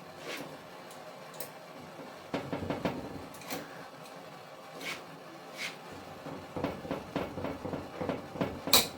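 Hand tools clicking, tapping and rattling against metal parts of a rust-seized planer while stuck screws are worked loose, in irregular clusters, with one sharp click near the end.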